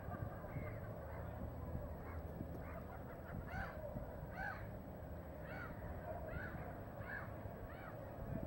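A bird calling again and again, short rising-and-falling calls at about one a second, over a steady low rumble.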